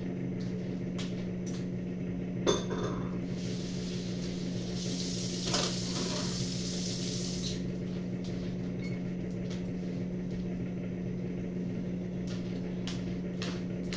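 Kitchen sounds over a steady low appliance hum: a sharp clink of dishes about two and a half seconds in, then a hiss lasting about four seconds with a knock near its middle, and a few light ticks of handling later.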